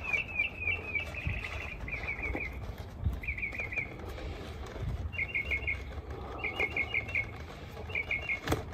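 A songbird singing short phrases of four or five quick chirps, repeated every second or so, over a low rumble. There is a single sharp click near the end.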